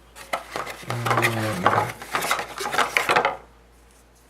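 Small metal tuning weights for a Logitech G500 mouse clicking and clattering in and against their plastic weight holder as they are handled. A low hummed voice runs under the clatter from about a second in until near the end.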